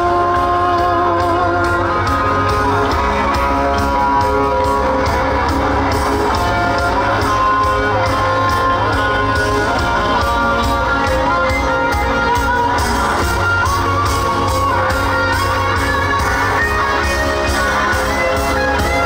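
Live band music: a singer over a band with a steady drum beat and bass.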